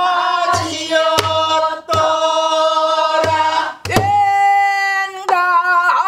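A woman singing a Namdo folk song (japga) in a full, throaty voice, holding long notes with a wide wavering vibrato. About five strokes on a buk barrel drum, played with a stick and the bare hand, keep the rhythm under the singing.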